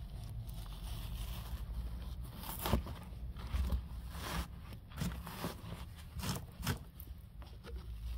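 Rotten, rusted-through car floor pan and its crumbling underseal being broken and pulled away by a gloved hand: irregular crunching and scraping with several sharp cracks in the second half.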